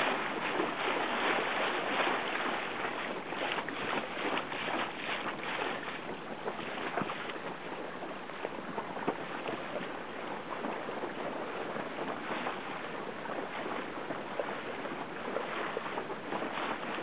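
Wind buffeting the microphone over rushing, splashing water from a Lark sailing dinghy under way: a steady rush dotted with many short crackles, a little louder in the first few seconds.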